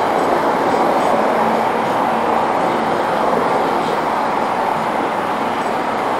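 InterCity 125 HST train of Mark 3 coaches rolling past: a steady rumble and hiss of wheels on rail.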